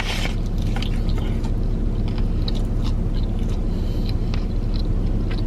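Close-up chewing of a mouthful of food, with small wet smacking clicks, over a steady low hum inside a car.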